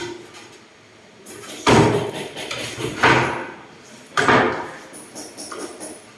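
Three heavy knocks on wood, roughly a second and a half apart, each one ringing out briefly.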